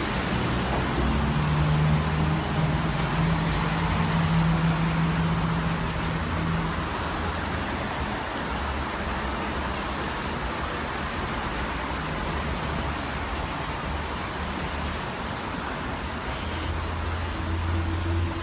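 A steady hiss with a low engine-like hum, as of a motor vehicle running.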